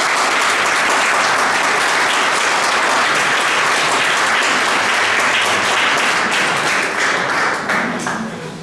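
Audience applauding: dense, steady clapping that thins out and fades near the end.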